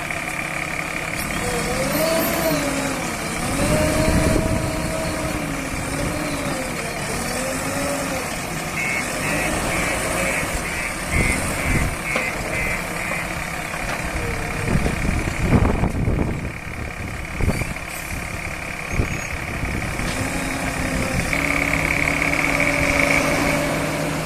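Diesel engine of a backhoe loader running, its pitch rising and falling under the hydraulic load in the first several seconds. A run of short beeps at about four a second comes around nine seconds in, and a few heavy knocks fall between about eleven and nineteen seconds in.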